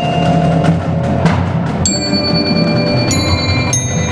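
Indoor drumline front ensemble playing: sustained low notes under bright, long-ringing mallet strikes on metal bars or chimes about two and three seconds in.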